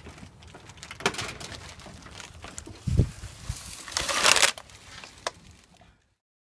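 A thin plastic water bottle crinkling and crackling in a hand, loudest about four seconds in, among scattered rustles and clicks. A heavy thump comes about three seconds in, and the sound cuts off abruptly near the end.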